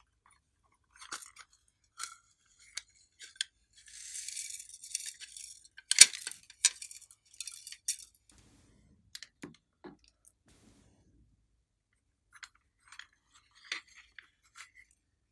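Hard plastic toy case clicking and snapping as its compartments are opened and closed, with a rattling hiss of glitter and sprinkles shaken out of it about four seconds in. The loudest snap comes about six seconds in, followed by scattered lighter clicks.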